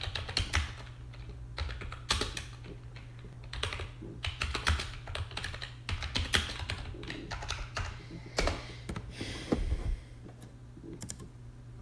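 Typing on a computer keyboard: irregular runs of key clicks, thinning out to a few scattered clicks near the end, over a low steady hum.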